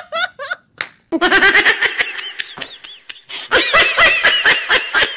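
Loud, high-pitched laughter in two long runs of quick 'ha' pulses. The first begins about a second in, and the second starts about three and a half seconds in.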